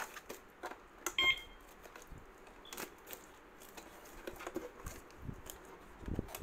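Plastic-wrapped siren housing being handled and turned over: plastic wrap crinkling with light clicks and knocks of the plastic case. A short electronic beep sounds about a second in.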